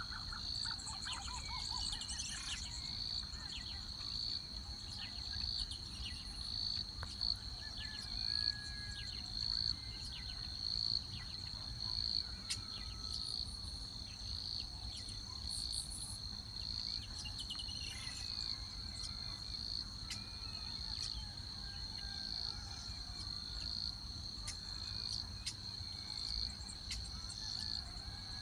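Insects trilling steadily at a high pitch, the trill swelling a little more than once a second. A few faint, brief bird chirps are scattered through it.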